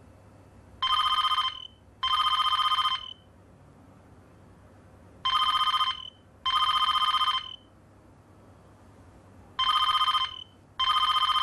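Cordless home telephone ringing with an electronic trill in a double-ring pattern: three pairs of rings, about four and a half seconds apart.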